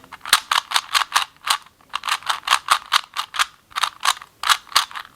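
Rubik's Cube (3x3) being turned fast, its plastic layers clicking about four times a second in a steady run of short, sharp clacks as it is worked towards a solve.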